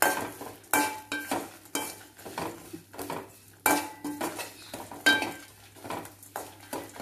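Metal spoon stirring and scraping spices, dried red chillies and coconut being dry-roasted in a metal kadai. The pan rings briefly each time the spoon knocks it, at irregular intervals of roughly half a second to a second and a half, with a scratchy rustle of the dry spices between knocks.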